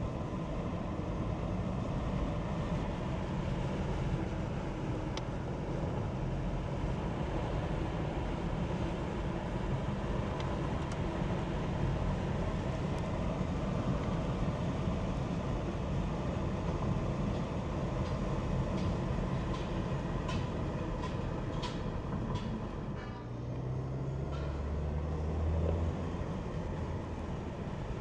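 Steady road and engine noise inside a moving car's cabin, a continuous low rumble. About two-thirds of the way through there is a short run of evenly spaced faint clicks.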